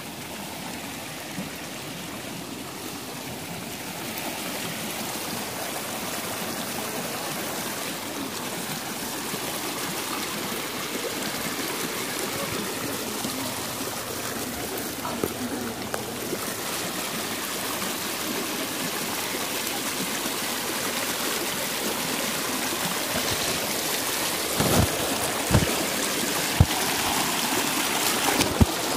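Shallow stream running and splashing over rocks, growing steadily louder, with a few short thumps near the end.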